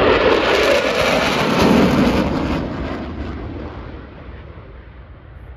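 Jet aircraft passing, loud, then fading away over the last few seconds as it moves off.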